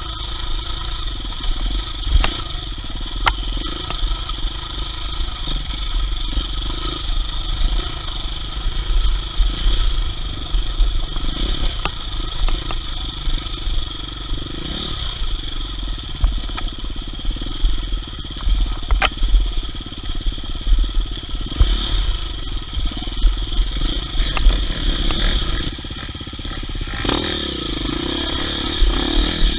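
Off-road dirt bike engine running under a rider on a rough trail, with a heavy uneven low rumble and scattered sharp knocks and clatter.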